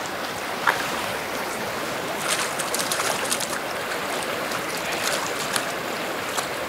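Small stream rushing steadily around the angler, with light splashes and drips scattered through it from a hand cradling a rainbow trout in the shallow water.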